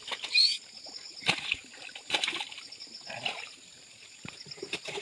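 Water splashing and sloshing around a person wading waist-deep and sweeping a long-handled landing net through the water, in several separate splashes.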